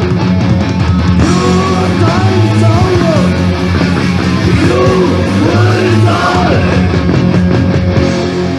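Punk rock song from a tape recording: distorted electric guitar, bass and drums, with shouted vocals from about a second in until near the end.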